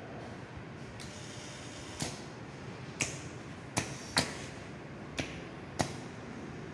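Sharp mechanical clicks, about one a second and seven in all, the loudest about four seconds in, a few followed by a short hiss. They come from a PLC-controlled pneumatic automation trainer switching its valves and relays as it steps through its sequence.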